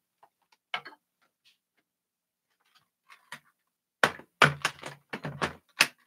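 Handling noise from upright vacuum cleaners being moved by hand with their motors off: a few faint clicks, then a quick run of louder clunks and knocks in the last two seconds.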